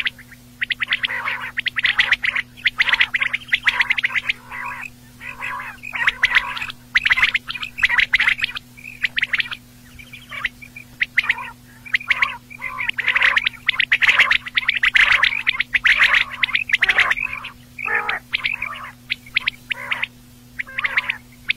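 Quail calling: bursts of short, quick notes repeated over and over with brief gaps between them. A steady low hum runs beneath.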